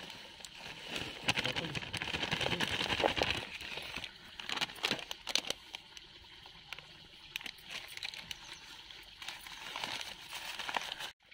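Plastic spice packets crinkling as they are handled and shaken to tip ground masala into a plastic bowl. A run of steady rustling comes about a second in, followed by scattered light crinkles and clicks.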